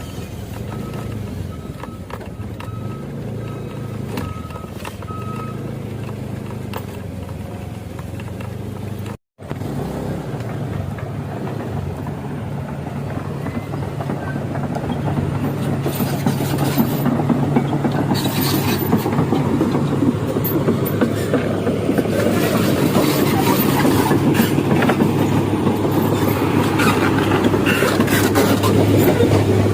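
A motor vehicle engine running steadily, broken by a cut about nine seconds in. After the cut the engine hum and a rushing noise grow louder toward the end.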